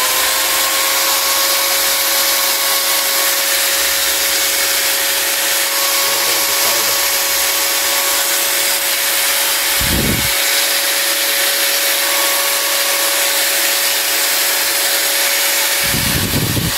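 Pumpkin J-G9612 4-inch 650 W angle grinder running at no-load with no disc fitted: a steady high whine over a hiss of motor and fan noise. Two brief low bumps come about ten seconds in and near the end.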